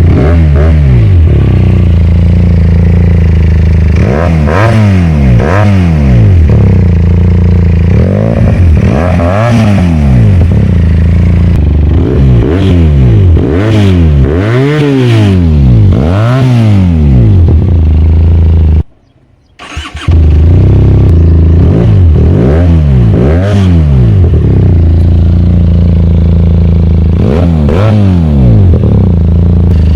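QJ SRK 400 twin-cylinder motorcycle engine through a custom bent mid pipe and Yoshimura silencer: a loud exhaust note revving up and falling back again and again. The sound cuts out briefly about two-thirds of the way through.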